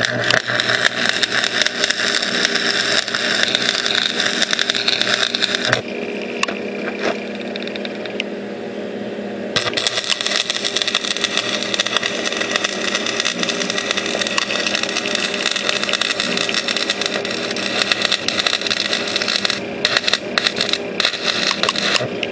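Stick welder arc crackling and sizzling as beads are run over cracks in a riding mower's front axle and frame, around a bolt. The arc stops for about four seconds, leaving a steady hum, then strikes again and runs on, breaking into short sputters near the end.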